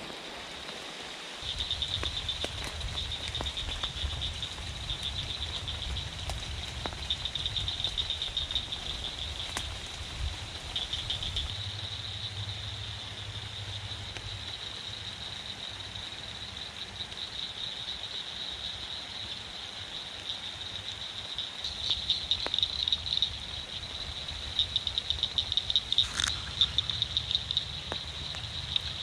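Frogs calling from a pond in rapid, high trills that come in bouts and overlap, with a steady rain haze underneath; taken for tree frogs.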